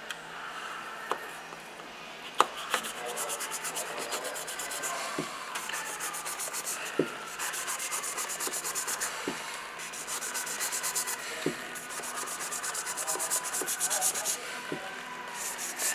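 A sharp knife sawing through the pleated element of a used aircraft oil filter: a dry rasping scrape in repeated back-and-forth strokes, with a few sharp clicks between them, as the blade is worked down the filter to open it for inspection of the media.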